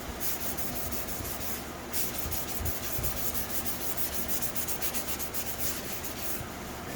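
K800-grit abrasive sheet rubbed back and forth by hand over a helmet's cured clear coat, flattening it. Quick, even scratching strokes, with a brief pause just under two seconds in, then a longer run that stops shortly before the end.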